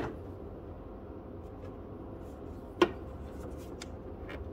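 Rubber hose being handled and worked onto a fitting on an engine: faint rubbing and small ticks, with one sharp click a little under three seconds in, over a steady low background hum.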